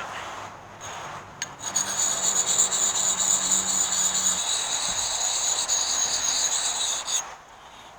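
Abrasive sharpening puck scraping along the steel edge of a camp axe: a steady, high-pitched grinding hiss. It starts after about a second and a half and stops sharply near the end.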